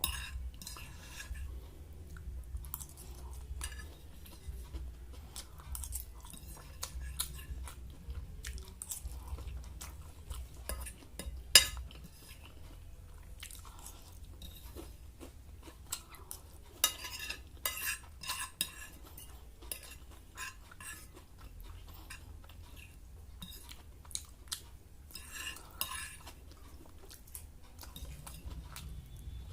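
A person chewing and crunching mouthfuls of fried Maggi noodles and chicken pakora, with cutlery clinking against a plate now and then. One sharp clink stands out partway through.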